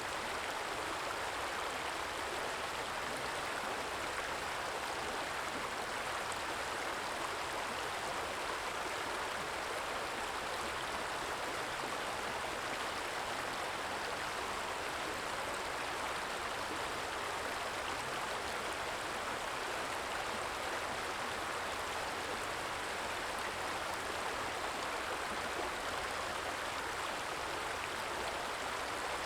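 A small stream flowing, a steady soft trickle of water with no change in level.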